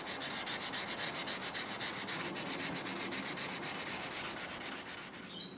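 Dry wet-and-dry abrasive paper rubbed lightly up and down along a steel sword blade's edge to sharpen it: a steady scratchy rasping in quick, even strokes, getting a little quieter near the end.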